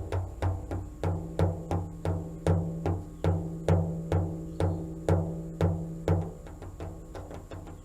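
Background music with a steady drum beat, about three beats a second, under struck, ringing pitched tones. The drum drops out a little after six seconds in.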